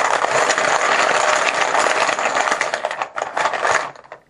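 A handful of chips rattling and clattering together as they are shaken up for a random draw, a dense run of small clicks that stops about four seconds in.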